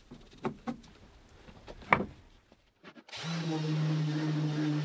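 A few faint knocks and a sharp click, then about three seconds in a random orbital sander comes in, running steadily against a hardwood board with an even motor hum and sanding hiss.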